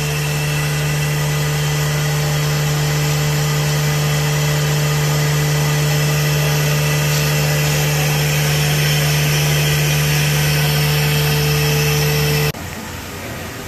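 Automatic C-fold hand towel paper machine running steadily: a loud, even mechanical hum with a constant whine over it. About twelve seconds in it cuts off suddenly, leaving a much quieter background.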